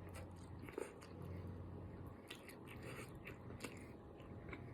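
A person chewing and eating noodles close to the microphone: faint, scattered wet mouth clicks and smacks.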